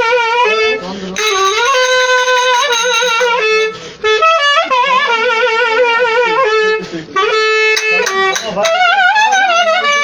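Metal clarinet playing an ornamented melody, with wide vibrato on held notes, a short break about four seconds in, and a run of fast repeated notes near the end.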